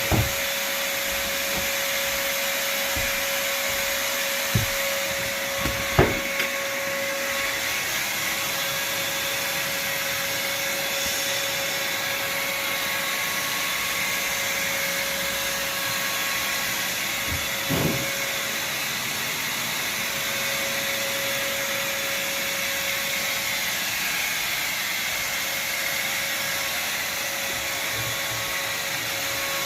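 Evolution R225DWS drywall sander running steadily with its vacuum dust extraction: an even airy whir with a constant hum, broken by a few short knocks.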